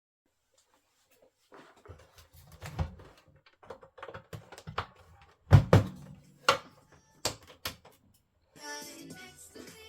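Irregular clicks, taps and knocks of plastic parts being handled and fitted together, as when a boombox's plastic case is put back together; the loudest knock comes about halfway through. Music starts playing near the end.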